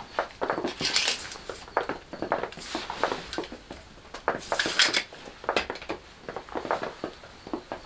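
Steel tape measure being drawn out and retracted along a scrap-wood board, its blade rattling in three short hissing bursts, amid light clicks and knocks from handling the wooden planks.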